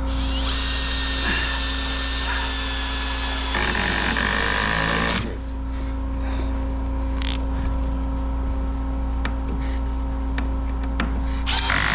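Power driver running for about five seconds, driving a 3-inch screw into lumber, its high whine giving way to a rougher sound partway through; after it stops, only a steady low hum remains.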